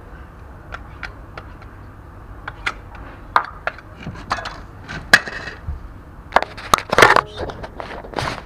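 Irregular clicks, taps and scrapes of a putty spreader and hand tools working filler against a ship's hull, becoming louder and more frequent over the last few seconds, with a cluster of heavier knocks near the end.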